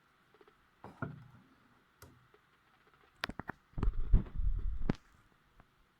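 Scattered clicks and knocks, with a dull low rumble lasting about a second from about four seconds in.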